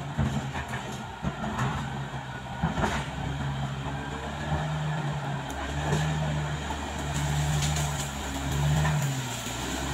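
Caterpillar D6R XL crawler dozer's diesel engine working under load as the blade pushes soil and brush, its note swelling and easing every second or two. A few sharp clicks stand out over it.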